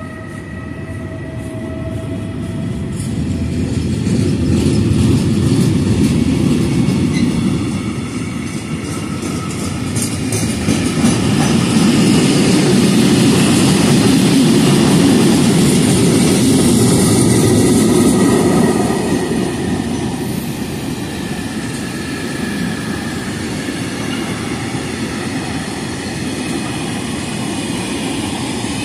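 Freight train of hopper wagons passing close at speed: the rumble and clatter of the wagon wheels on the rails, loudest about halfway through. A high whining tone at the start fades within the first couple of seconds.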